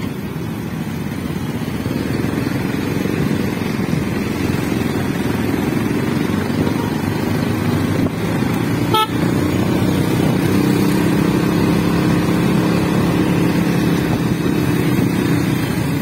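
Motorcycle engine and wind noise while riding in traffic, with horn honks, and a single sharp click about nine seconds in.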